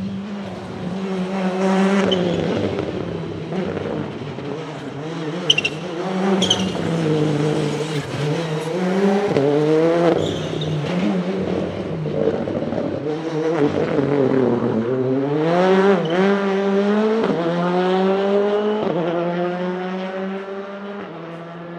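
Citroën C3 R5 rally car's 1.6-litre turbocharged four-cylinder engine running hard on a rally stage, its pitch climbing through the gears and falling back several times. A couple of sharp cracks come about six seconds in.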